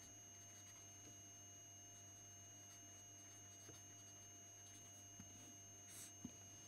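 Near silence: room tone with a steady faint hum and a thin high whine. A few faint scratches of a felt-tip marker on paper come near the end.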